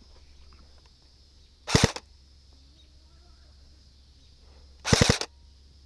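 Airsoft gun firing two short bursts of a few rapid shots each, about three seconds apart.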